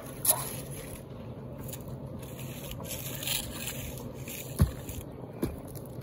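Steady low mechanical drone, with a few sharp knocks, one near the start and two near the end, and a brief scrape in the middle.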